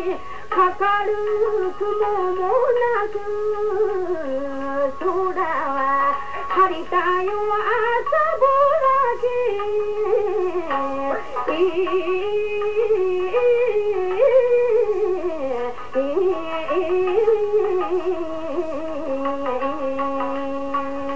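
A woman singing a Tsugaru folk song in a long, bending, heavily ornamented line, with Tsugaru shamisen plucked beneath her voice. She settles onto one held low note near the end. The sound is narrow and dull, from an old radio broadcast recording.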